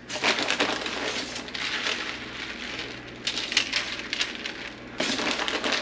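Crackly rustling of tortilla chips on a parchment-lined tray as shredded sharp cheddar is scattered over them by hand. It comes and goes, louder in a few stretches and again near the end.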